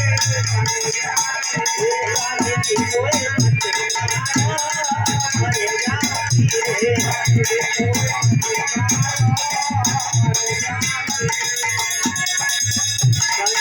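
Instrumental folk music: a sustained melody over a steady drum beat and fast, even jingling rattle strokes.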